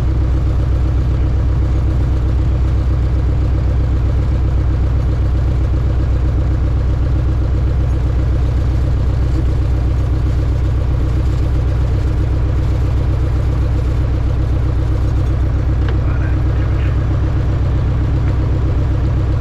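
Single-engine light aircraft's engine and propeller running steadily at taxi power, heard from inside the cockpit.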